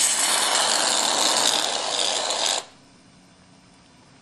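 Aerosol whipped-cream can spraying: a loud hiss that lasts about two and a half seconds and then cuts off.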